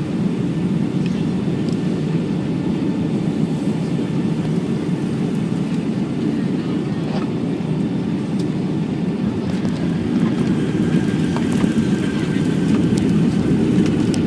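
Steady low rumble of a jet airliner's cabin noise (engines and rushing air) during the landing, growing a little louder about ten seconds in, with a few faint clicks and rattles.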